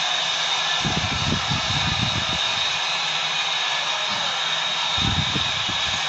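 A large stadium crowd screaming and cheering in a steady, high-pitched wall of noise, with low thumps about a second in and again near the end.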